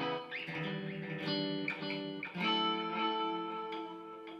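Electric guitar played through a tape-delay effect with the delay level turned all the way up: a few picked notes whose echoes pile up into a sustained layer, then fade away near the end.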